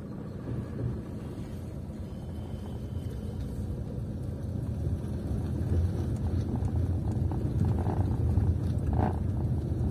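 A car driving along a road: a low, steady rumble of engine and road noise that grows gradually louder.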